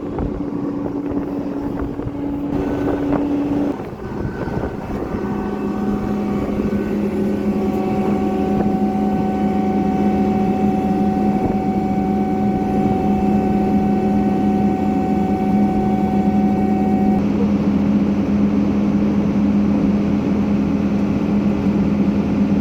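Diesel farm machinery engine running steadily. Its pitch shifts lower about four seconds in, then holds, growing slightly louder.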